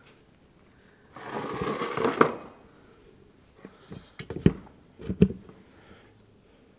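Oil pump pushing thick gear oil through a hose into a tractor's front hub: a rush of hissing noise for about a second, then a few sharp knocks.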